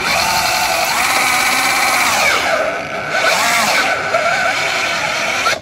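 Evolve GT electric skateboard's belt-driven brushless motors whining at full throttle while held back against a shoe, loaded toward stall and drawing about 40 amps, with rubber scrubbing against the shoe. The whine sags in pitch and recovers a little past two seconds in.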